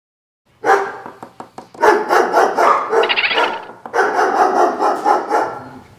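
A squirrel barking and chattering in quick repeated rasping calls, starting about half a second in, with a short break just before the four-second mark.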